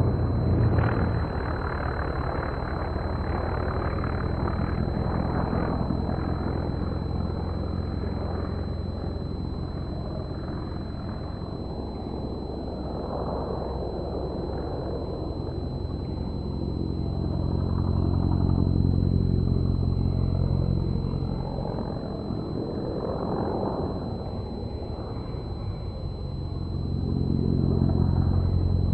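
Piston engines and propellers of Extra aerobatic aeroplanes running in flight, a steady drone that swells and fades as they manoeuvre, loudest about two-thirds through and again near the end.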